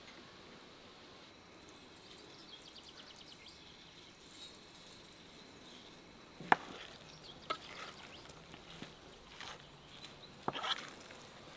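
Faint outdoor background, then several sharp clinks of metal utensils against a stainless steel mixing bowl: the loudest about six and a half seconds in, and a quick cluster near the end as a fork starts mixing minced beef and chopped green onions.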